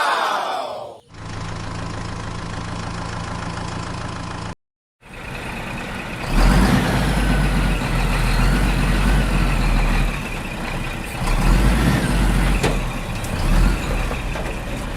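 Vehicle engine running, in separate pieces cut together: a sound that falls in pitch at the start, a steady hum, a brief cut to silence about four and a half seconds in, then a louder run with a deep rumble.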